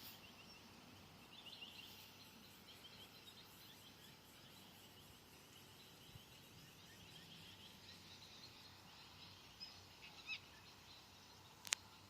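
Faint, distant small-bird chirping: a long run of quick, high repeated notes, then a few short calls, over a quiet outdoor background. A single sharp click near the end.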